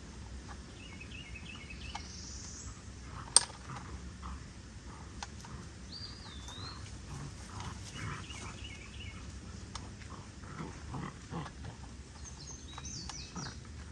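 Redbone coonhound puppies grunting and growling at play, with high chirping calls over them and one sharp click a few seconds in.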